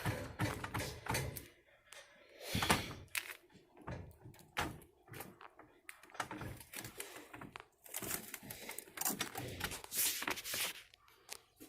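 Irregular knocks and clicks with some longer rubbing and scraping swells: handling noise from working on the car's dented roof and the boards around it.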